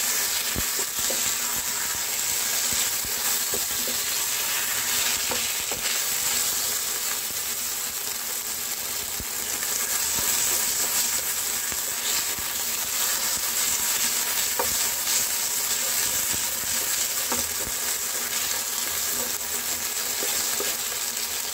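Marinated boneless chicken pieces sizzling steadily in oil in a pan while a wooden spatula stirs and turns them, with occasional light taps and scrapes against the pan.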